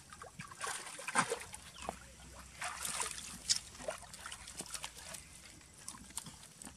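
Water splashing and sloshing in irregular bursts as a macaque swims and climbs out of the pool, with water trickling off it.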